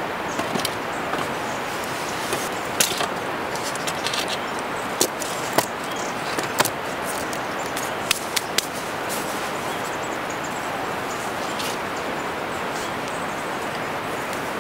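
Wooden branches knocking and clicking against the poles of a stick shelter frame as they are fitted into place: a string of sharp knocks, most of them in the first nine seconds. A steady hiss runs underneath.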